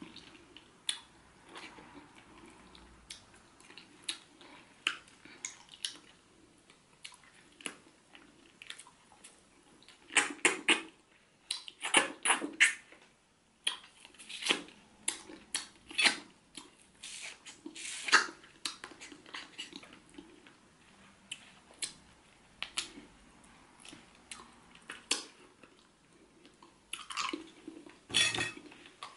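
Close-up eating sounds: wet chewing and mouthing of a pepper-soup catfish head held in the hands, with many irregular smacks and clicks that come in clusters about ten seconds in, between about fourteen and eighteen seconds, and near the end.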